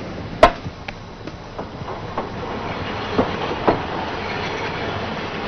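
Railway noise beside a passenger train at a station platform: a steady rush of noise, with one sharp knock about half a second in and a few fainter clanks later on.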